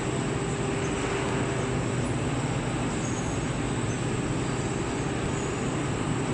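Soft thermal bonded wadding production line running: a steady mechanical hum and rush from its motors, fans and rollers.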